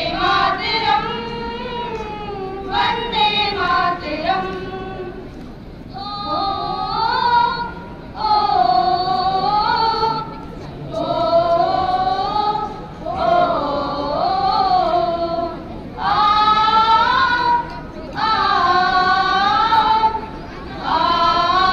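Voices singing together without instruments, in phrases of about two seconds broken by short pauses.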